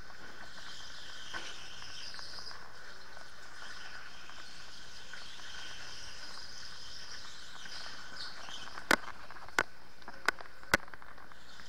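Electric go-kart running at speed, heard onboard: a steady whine and hiss with wavering high tones. Near the end come four sharp knocks in quick succession.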